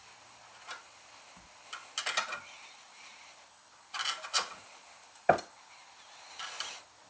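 Small metal clicks and scrapes as a small pry bar tool wiggles valve keepers into a valve spring retainer under a spring compressor on a small block Chevy cylinder head. They come in short clusters about two and four seconds in, with one sharp click just past five seconds, the loudest, and a brief scrape near the end.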